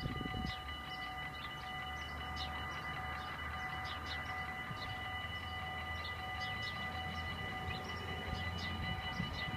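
Dutch level-crossing bells ringing steadily while the warning lights flash and the barriers are down. A low rumble from the approaching LINT 41 diesel train grows near the end.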